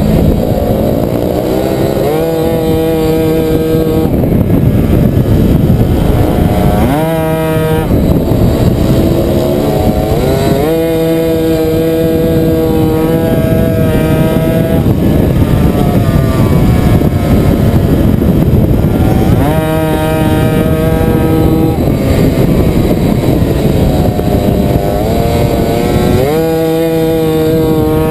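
Tuned 70cc Puch Maxi racing moped's single-cylinder two-stroke engine heard from on board, revving up hard out of the corners, holding high revs and then dropping off, about five times.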